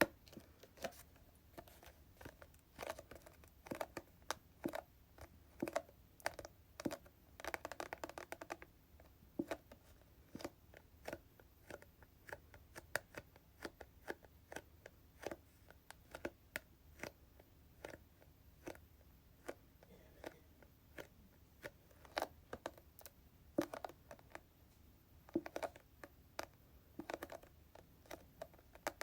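Slow, soft tapping on hair product containers, about two taps a second, irregular, with a short denser flurry of taps about eight seconds in.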